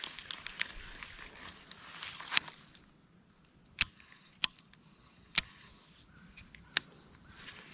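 Footsteps rustling through bank vegetation for the first couple of seconds, then quieter, with five sharp single clicks spaced about a second apart.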